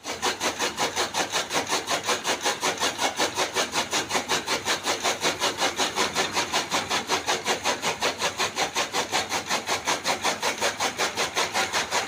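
Flywheel chaff cutter chopping green fodder as the stalks are fed into its blades: a fast, even run of chopping strokes, several a second.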